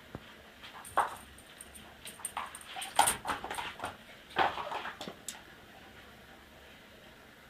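A pet's short yelping cries in three bursts, about a second in, around three seconds in and around four and a half seconds in, mixed with sharp clicks.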